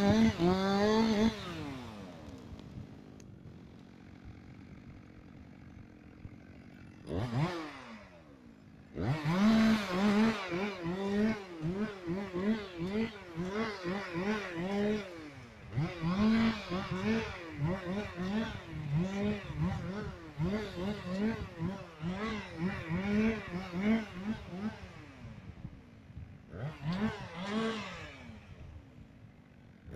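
Chainsaw engine held at full throttle, dropping to idle about a second in and idling for several seconds. From about nine seconds in it is revved up and down in quick repeated bursts, roughly one a second, with a short lull near the end.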